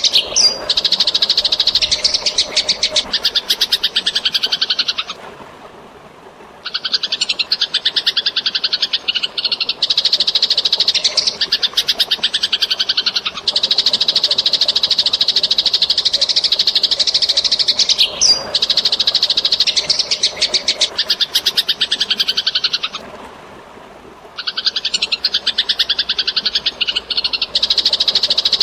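Eurasian tree sparrows giving rapid, harsh chattering calls, the agitated calls of sparrows fighting, in long runs broken by two short pauses. A faint sound of water lies beneath.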